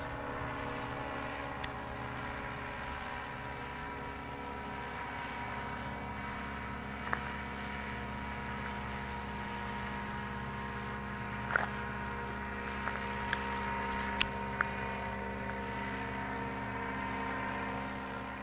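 Steady drone of an EOS 150 two-stroke paramotor engine flying overhead, heard from the ground, with a few brief clicks in the middle.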